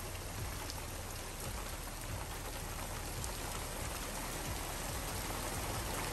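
Steady rain falling in a downpour: an even hiss with scattered faint drop ticks.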